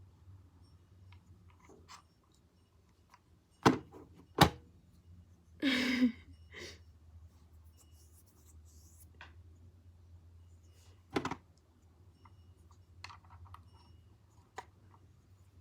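Plastic clicks and knocks from handling tripod parts while fitting a small battery video light onto its mount: two sharp knocks about four seconds in, another about eleven seconds in, and faint clicks between.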